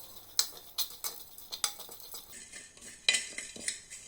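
A spoon clinking and knocking against a clay pot in irregular strikes as whole spices (cumin, dried ginger and black pepper) are stirred and dry-roasted in it.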